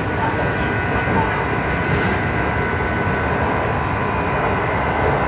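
Kintetsu 2800 series electric train heard from inside the motor car: the Mitsubishi MB-3110A traction motors and gearing run with a steady whine of several tones over wheel-on-rail rumble. This is a low-tone car whose gear couplings give an unusual noise unlike other low-tone cars.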